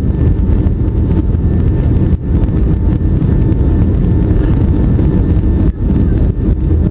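Jet airliner cabin noise on final approach with the flaps extended: a loud, steady low roar of the engines and airflow, with a faint steady whine above it.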